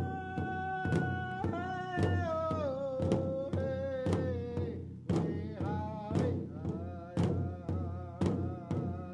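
Native drum circle song: a large drum beaten in a steady beat, about one and a half strokes a second, with voices singing a chant of long held and gliding notes over it.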